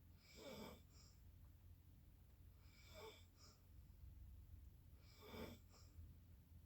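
A sleeping person snoring faintly, three breaths about two and a half seconds apart.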